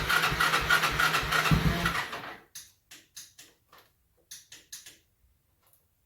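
Electric starter of a Honda TRX200 ATV cranking with a rapid regular pulse, stopping about two seconds in, followed by a run of light, irregular clicks. The starter has trouble engaging and disengaging.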